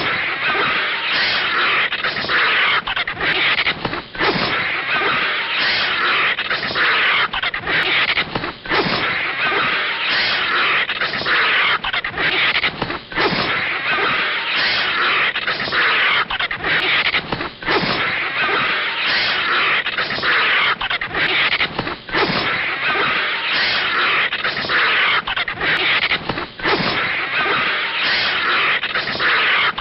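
Animated sound effects of a snake and a vulture fighting: a harsh, noisy animal sound that goes on almost without pause, broken by many brief gaps.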